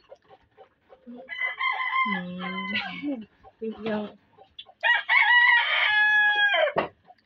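A rooster crowing twice: a first crow starting about a second in, then a longer, louder crow about five seconds in that drops in pitch as it ends.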